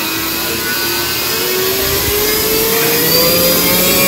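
Small brushless outrunner motor spinning a plastic propeller at a throttle test, its whine rising steadily in pitch and growing louder as the throttle is pushed up toward full.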